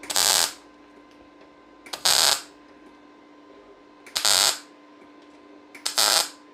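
MIG200 D3 inverter welder tack-welding 0.7 mm thin sheet steel with 0.8 mm SG2 solid wire: four short bursts of arc crackle, each about half a second long, about two seconds apart. A steady low hum runs underneath.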